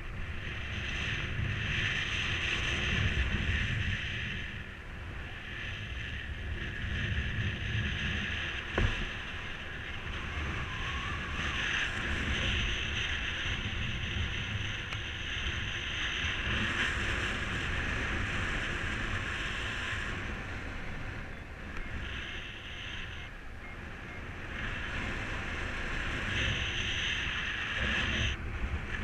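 Wind rushing over the microphone in paraglider flight: a steady low buffeting with a high whistle that comes and goes every few seconds. There is one sharp click about nine seconds in.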